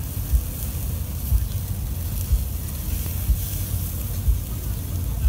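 Chicken pieces sizzling on a large grill, a thin steady hiss, over a loud low rumble with a dull thump about once a second.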